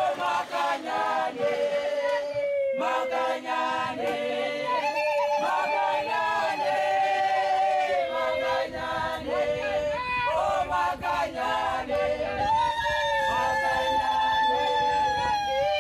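Choral singing laid over the pictures, voices holding long notes that glide and change every few seconds.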